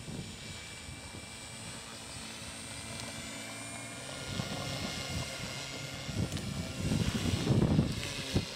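The brushless electric outrunner motor and 13x6 propeller of a large RC model airplane running with a steady high whine. A loud, uneven low rumble joins in about seven seconds in.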